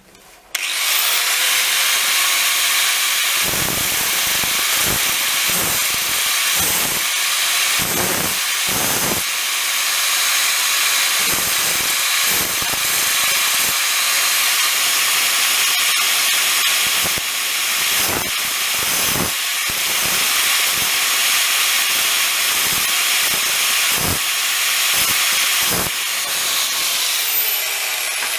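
Electric grinder spinning up and running with a steady hiss of abrasive grinding, shaping a drill bit into a spot weld cutter, with repeated brief surges as the work is pressed to the wheel. It begins winding down near the end.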